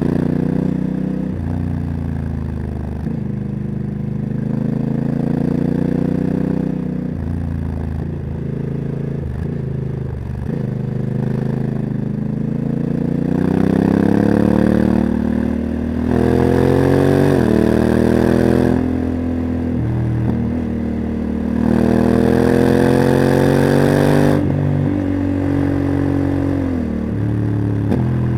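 Honda CRF1100L Africa Twin's parallel-twin engine, through a Leo Vince exhaust, pulling hard and easing off repeatedly. Several times the revs climb and then drop sharply as the dual-clutch gearbox shifts up, with the exhaust note louder on each pull.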